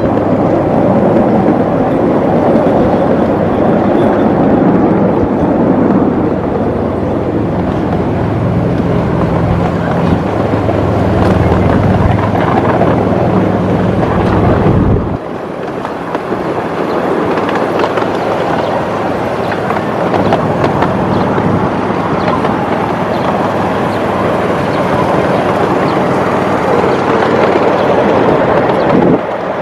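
Miniature ride-on train running along its track, heard from aboard: a steady rumble of wheels on rail with a low engine hum. The sound drops and changes abruptly about halfway through, then the rumble carries on.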